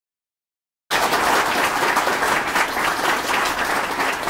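Audience applauding, cutting in suddenly about a second in.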